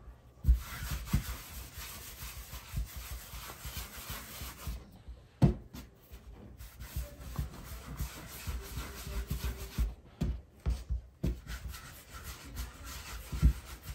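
Hand rolling small pieces of tortilla dough into balls on a wooden tabletop: soft rubbing and scuffing against the wood, with a few dull knocks on the table.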